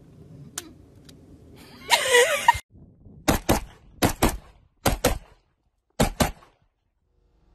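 A brief loud rushing sound about two seconds in. Then an AR-15-style rifle fires in quick pairs: four double-taps over about three seconds.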